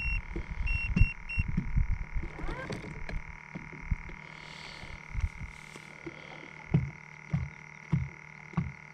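Fishing boat electronics and spot-locked trolling motor: four short electronic beeps in the first second and a half, over a steady high-pitched whine. A run of soft low thumps continues throughout, coming about every half second near the end.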